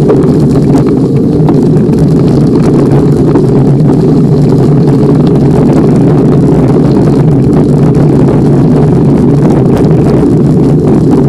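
Steady, loud rumble of a bicycle ridden along a gravel path: tyres on the gravel and wind on the microphone, with no breaks.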